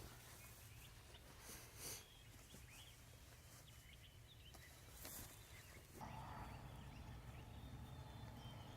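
Near silence: faint outdoor ambience with small, distant bird chirps, and a slightly louder hiss coming in about six seconds in.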